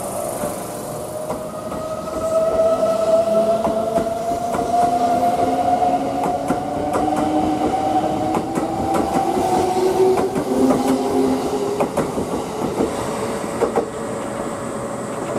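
Kintetsu 23000 series Ise-Shima Liner electric train accelerating past the platform: a motor whine that rises slowly in pitch, with wheels clacking over the rail joints. The sound falls away near the end as the last car clears.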